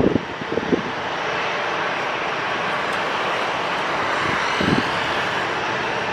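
Boeing 777 on final approach with its gear down: a steady, distant jet engine noise. Wind buffets the microphone in short low gusts near the start and again about four and a half seconds in.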